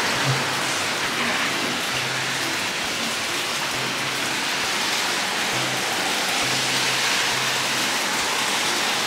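Hot-spring water pouring from a stone spout into the bath, a steady splashing rush.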